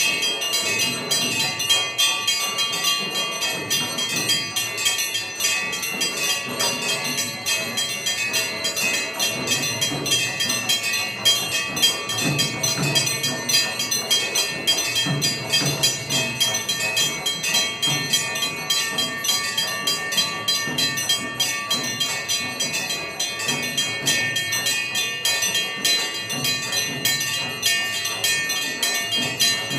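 Hindu temple bells rung rapidly and without pause during the puja's aarti, a dense, continuous clanging with the bells' tones ringing on over the strikes.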